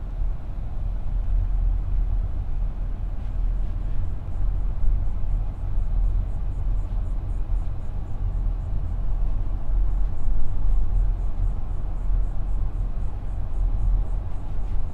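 A steady low rumble, with a faint high chirping pulsing about three times a second from about four seconds in.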